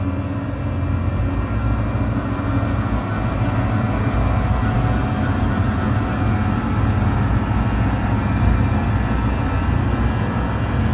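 Dark ambient background music: a steady low rumbling drone with faint sustained tones above it.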